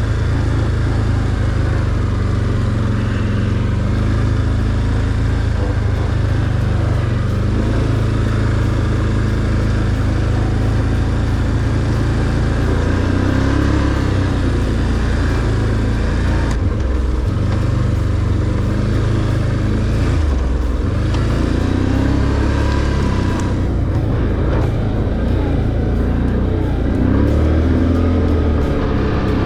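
ATV engine running steadily under way on a dirt trail, its pitch rising and falling a few times as the throttle changes.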